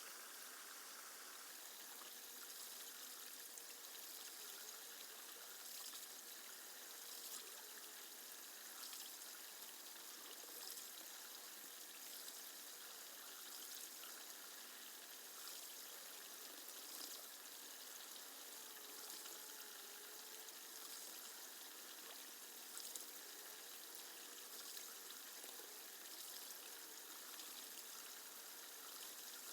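Faint, steady running water, an even trickling hiss that does not change.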